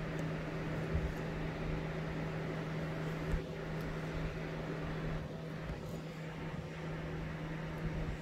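Steady machine hum with a constant low tone, with a few faint snips of scissors cutting yarn.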